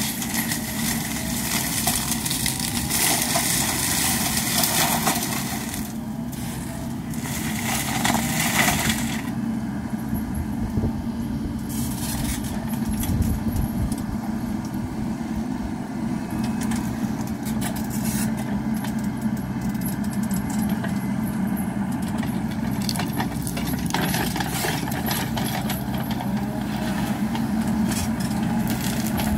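Wacker Neuson ET65 mini excavator's diesel engine running steadily, driving a hydraulic forestry mulcher whose spinning rotor shreds shrubs and branches in loud spells. The longest spell of shredding is in the first six seconds.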